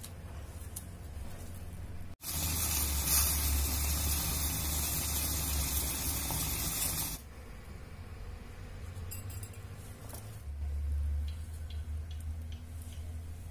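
Small steel saucepan of sugar syrup with lemon peels at a rolling boil: loud bubbling and hissing for about five seconds, starting and cutting off abruptly.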